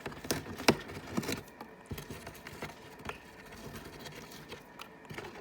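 A parrot chewing and crunching an object with its beak: sharp snaps and clicks, several close together in the first couple of seconds, then sparser and fainter.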